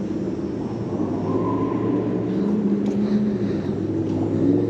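Steady engine drone in the background, its pitch drifting slightly upward about two seconds in.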